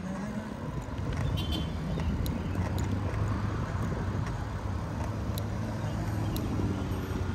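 A motor vehicle's engine running close by: a steady low hum over street traffic noise, with a few light clicks.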